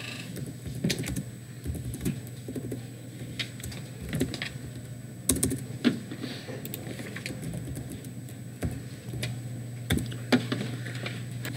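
Typing on a computer keyboard: irregular keystrokes with short pauses between them, over a steady low hum.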